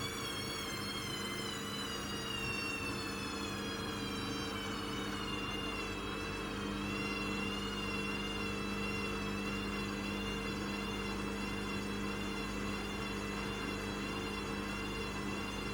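Hoover Custom Vision washing machine's motor running, a steady whine that wavers slightly in pitch over a low hum.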